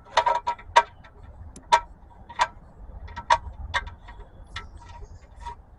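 Old engine oil dripping from the drain hole into a drain pan: a dozen or so irregular light plinks, the drain slowing to drips as the last of the oil comes out.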